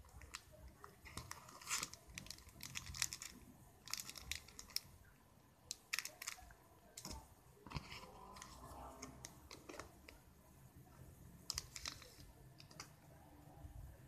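Handling noise from a leather snap-button sunglasses case and its packaging: scattered soft clicks, rustles and crinkles as the case is opened and the sunglasses are taken out.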